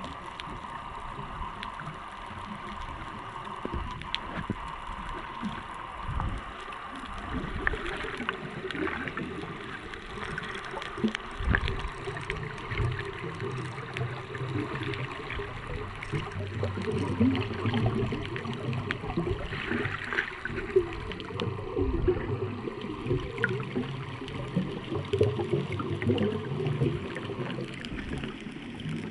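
Muffled underwater sound from a camera below the surface: bubbling and gurgling water with a low rumble that grows stronger about halfway through, and scattered faint clicks.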